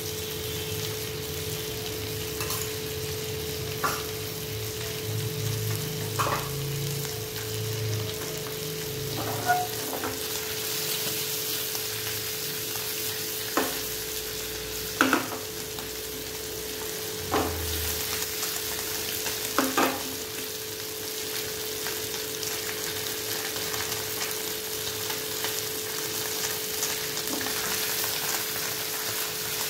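Bata fish shallow-frying in butter and oil in a nonstick pan, giving a steady sizzle. About seven sharp knocks during the first twenty seconds come from the pan being handled on the burner.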